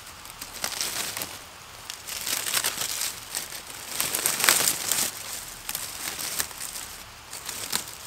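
Dry fallen leaves and twigs rustling and crackling close by as a hand brushes and pulls at the forest-floor litter, loudest a little past halfway.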